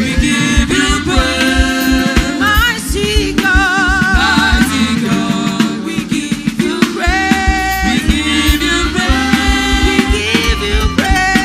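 Live gospel worship music: a singer's voice with vibrato over a band with drums and bass keeping a steady beat.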